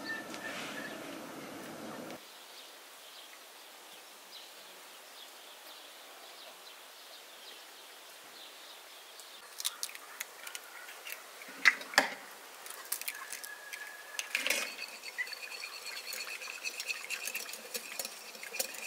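Eggs cracked against the rim of a glass bowl with two sharp knocks, then beaten with a fork, the tines clicking quickly against the glass.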